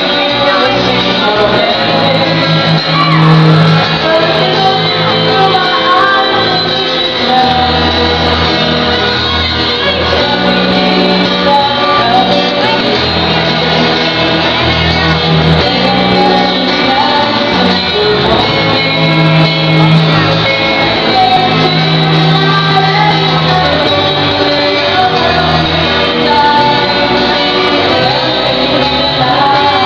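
Live band playing a song through a PA: vocalists singing over strummed acoustic guitars and electric bass, the bass holding long low notes.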